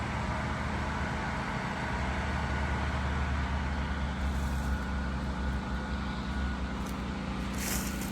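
Hurricane wind blowing hard, a steady low rumble with short hissing gusts about halfway through and near the end.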